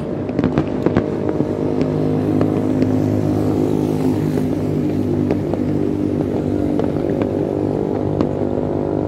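A motor vehicle engine running steadily, strongest mid-way, with scattered sharp pops from fireworks and firecrackers going off in the distance.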